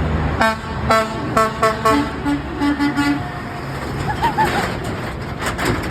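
A passing truck's horn honking in a rapid series of about ten short blasts over roughly three seconds, the later blasts lower in pitch. Traffic rumbles underneath.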